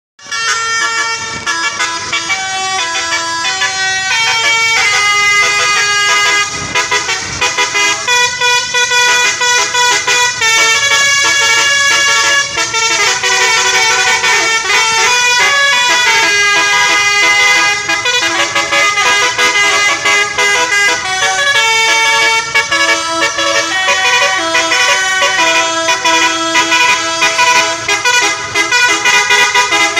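Multi-tone telolet (basuri) air horn of a bus playing a melody, loud and unbroken, its tones switching in quick steps from note to note; it cuts off suddenly at the end.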